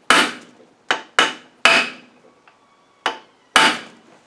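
Six sharp hammer blows on metal, unevenly spaced, each ringing briefly, struck on the thick-walled nut of an LT77S gearbox.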